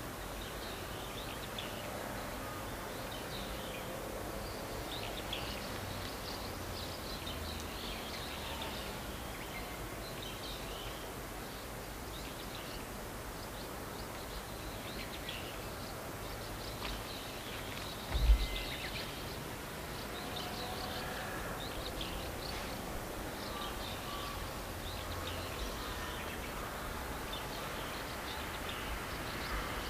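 Outdoor ambience with small birds chirping on and off, over a light low rumble. A single low thump stands out about eighteen seconds in.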